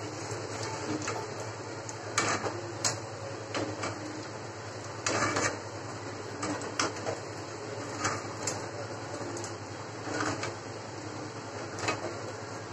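Badushas deep-frying in oil in an aluminium kadai, a steady gentle sizzle, with a slotted metal spoon clinking and scraping against the pan now and then as they are lifted out.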